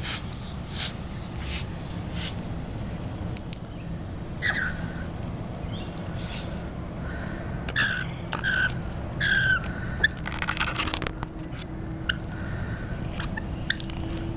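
Rainbow lorikeets making short squeaky chirps that fall in pitch, mixed with sharp clicks, and a brief raspy burst about ten seconds in. A steady low hum runs underneath.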